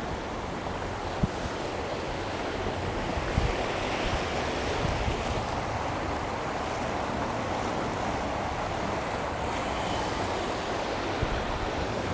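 Steady rush of flowing water from a river leading to a waterfall, with a few brief low thumps of wind on the microphone.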